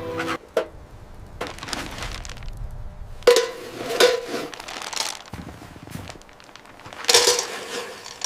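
A series of irregular crunching, rustling knocks, the loudest about three seconds in and another cluster near the end.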